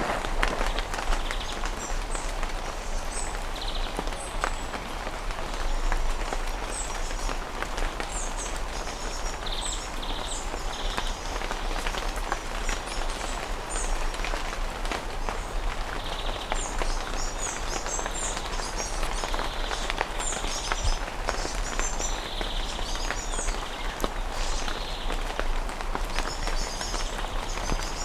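Steady rain falling on foliage and ground, with birds chirping in short high calls over it throughout.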